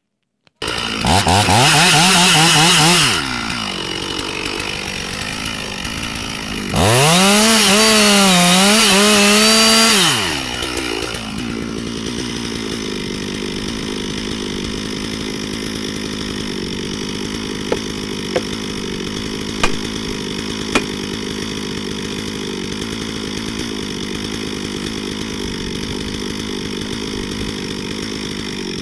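Stihl chainsaw revved hard twice, its pitch wavering under the throttle, then running steadily at a lower level. A few sharp knocks stand out about two-thirds of the way through.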